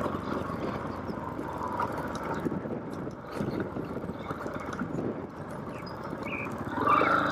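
Motorcycle riding over a rough cobblestone road: the engine runs under a clatter of knocks and rattles from the stones. Near the end a higher steady whine comes in and grows louder.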